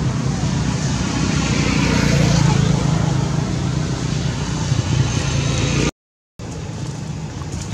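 Steady low rumble of outdoor background noise. It cuts out completely for about half a second about six seconds in, then comes back quieter.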